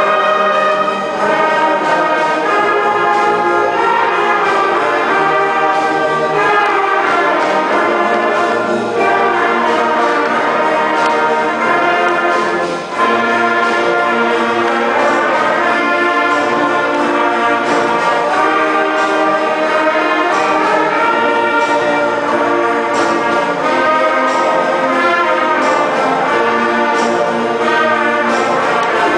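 A middle-school beginning concert band playing, with trombones, tubas, flutes and clarinets sounding together. There is a brief break in the playing about halfway through.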